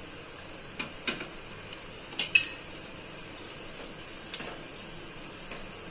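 Sliced onions sizzling faintly in hot oil in a non-stick kadai while they are stirred with a spatula. There are a few sharp clicks and knocks of utensils against the pan, two pairs in the first couple of seconds with the loudest about two and a half seconds in.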